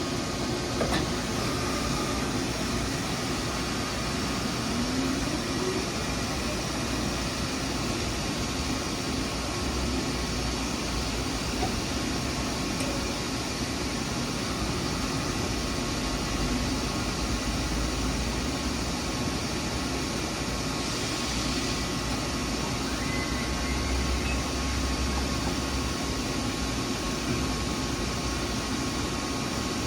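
Steady machine-shop background noise: an even hiss with a low hum and a few faint steady tones, like ventilation and running machinery.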